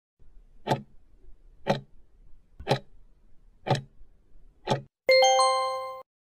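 Countdown timer sound effect: five clock ticks, one a second, then a bell-like chime that rings for about a second and cuts off, marking the end of the answering time.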